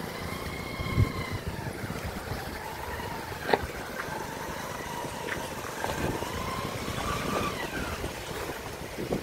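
Motorcycle engines running as the bikes ride through a shallow river ford, with two sharp knocks about one and three and a half seconds in.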